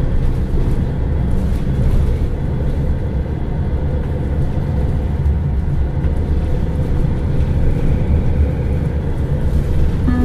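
Diesel engine and drivetrain of a MAN NL323 Lions City city bus running steadily under way, heard from inside the passenger cabin as an even low drone.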